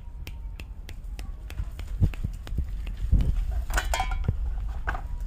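German shepherd puppies moving about on gravelly dirt: scattered scuffs and clicks over a steady low rumble, with a few louder scrapes and knocks from about two seconds in.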